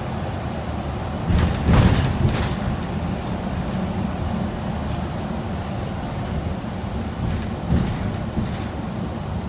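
Inside a moving city transit bus: steady low rumble of the engine and tyres. A loud rattling clatter from the cabin comes about a second and a half in, and a shorter one near the end.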